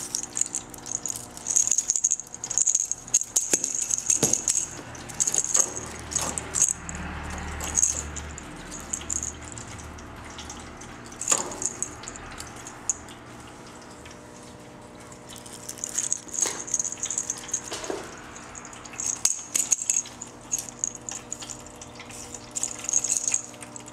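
A hollow plastic cat-toy ball with a rattle inside, jingling in short spells as a kitten bats and rolls it across a hard floor, with light knocks of the ball and paws against the floor. A faint steady hum runs underneath.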